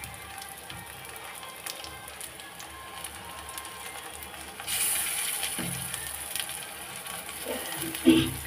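Pakoras deep-frying in oil in an iron kadhai: a steady sizzle with fine crackles that grows to a louder hiss about five seconds in. A brief louder sound comes near the end.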